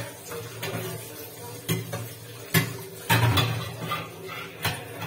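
Steel utensils clinking and knocking against each other in a kitchen sink as dishes are washed, a series of sharp clanks with the loudest about two and a half seconds in.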